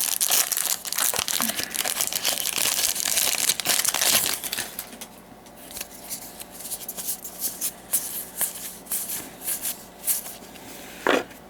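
A foil Magic: The Gathering booster-pack wrapper being crinkled and pulled at as it is worked open, the wrapper stubborn and not tearing easily. After about four and a half seconds it gives way to quieter, scattered crinkles and clicks.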